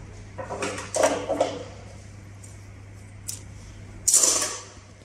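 Stiff conveyor belting with a stitched-on profile being pulled out from under the heavy sewing machine's presser foot and handled: a few clattering knocks about a second in, a click, then a brief rustling scrape near the end. A low steady hum runs underneath.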